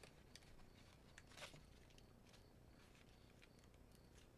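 Near silence with a few faint paper rustles and light clicks from handling die-cut cardstock pieces.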